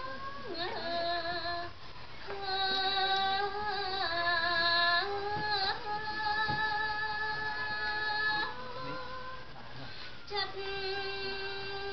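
A woman singing smot, Khmer Buddhist chanted verse, solo into a microphone, in long held notes that waver and bend, with short breaks between phrases.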